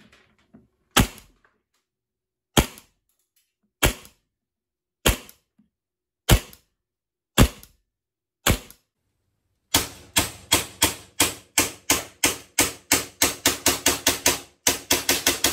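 Tokyo Marui Night Warrior gas-blowback airsoft pistol firing on green gas (Smart-Gas): seven single shots about a second apart into a chronograph, each a sharp crack of the slide cycling. From about ten seconds in it fires a quick string of shots, several a second, with a short break near the end.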